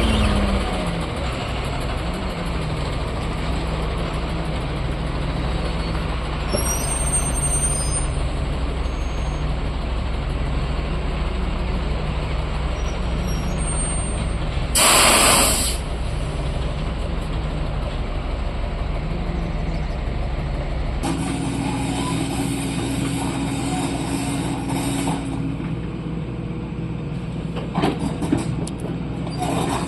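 Heavy diesel engines of an excavator and a tipper truck running steadily, with one short, loud air-brake hiss about halfway through. The engine note changes about two-thirds of the way in, and a few knocks sound near the end.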